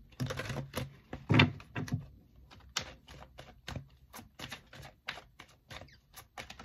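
Oracle cards being shuffled and handled: a quick, irregular run of card flicks and taps, with a few heavier thumps in the first two seconds.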